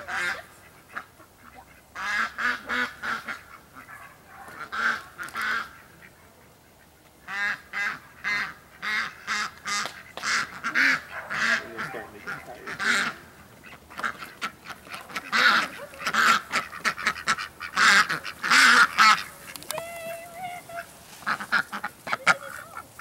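A flock of domestic ducks quacking in quick runs of short calls, with brief pauses between the runs; the loudest calls come past the middle.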